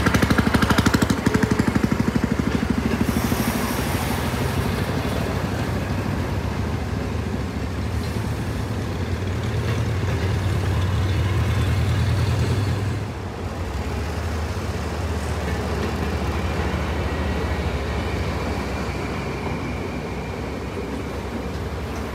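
Diesel locomotive engine running with a steady low rumble, pulsing rapidly in the first couple of seconds; the level dips briefly about thirteen seconds in.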